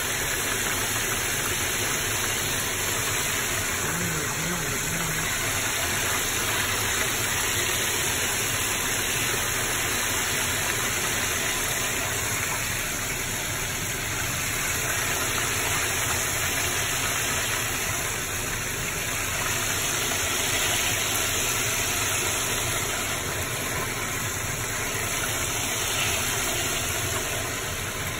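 Breaded chicken deep-frying in a pan of hot oil: a steady sizzle of bubbling oil.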